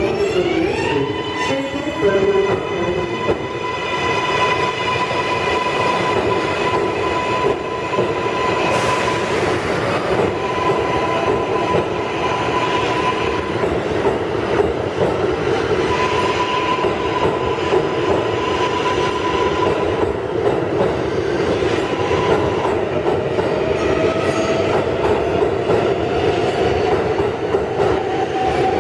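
New York City Subway R142A train pulling out of the station. The propulsion whine rises in pitch in the first second or so as the train starts moving, then holds one steady tone, over the continuous rumble of wheels on rail. A second whine climbs slowly near the end as the cars keep passing.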